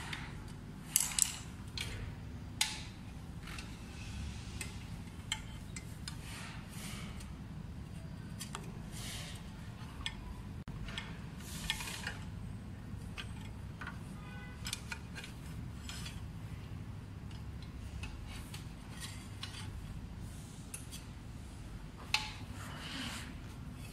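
Hand-assembly handling noise: scattered light metallic clicks, taps and rubbing as a screwdriver works on fender mounting bolts and parts and cables are moved about, over a steady low hum. The sharpest clicks come about a second in and again near the end.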